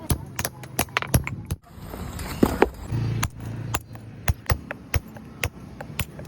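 Repeated sharp knocks of a tool striking stone as a stone grinder is shaped, irregular, about two or three a second, with a brief pause about a second and a half in.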